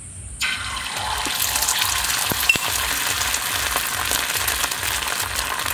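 Beaten egg poured into hot oil on a flat tawa, bursting into a sudden sizzle about half a second in and then frying with a steady crackling sizzle.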